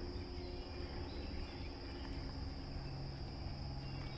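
Steady high-pitched chorus of insects, with a low hum underneath that grows a little stronger about halfway through.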